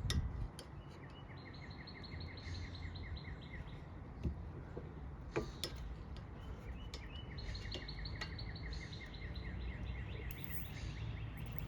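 Trapped air squeaking out past the new rubber boot as a brake caliper slide pin is pushed all the way in: two runs of rapid, evenly repeated high squeaks, the second longer, with a few light clicks.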